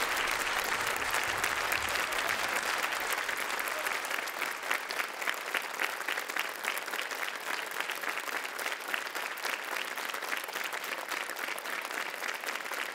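Studio audience and judges applauding: a dense wash of clapping that thins after about four seconds into more separate, distinct claps.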